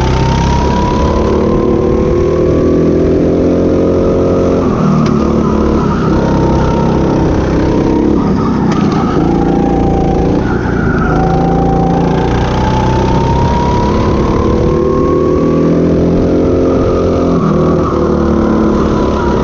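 Go-kart engine heard from the driver's seat during a lap, its pitch climbing in long rises as it accelerates and dropping back as it slows for corners, several times over.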